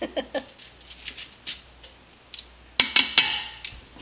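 Metal tongs clicking and scraping against the stainless steel inner pot of an Instant Pot as pork steaks are lifted out. A louder metal clatter with a brief ring comes near the end.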